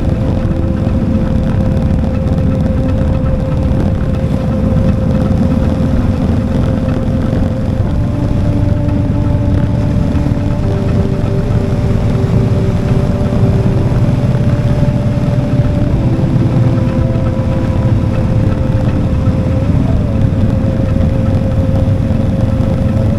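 Motorcycle engine running at a steady cruising speed under a heavy rush of wind and road noise, its pitch dipping slightly once about two-thirds of the way through.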